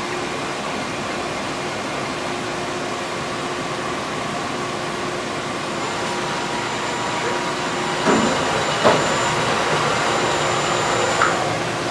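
Cincinnati CNC machining center running with a steady hum as it moves its axes to reprobe a tool. A thin high whine starts about halfway through and stops near the end, and a few short knocks come in the second half.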